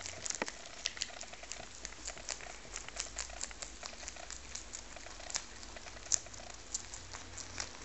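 Two rabbits chewing savoy cabbage leaves: quick, irregular crunching and nibbling, several small crunches a second.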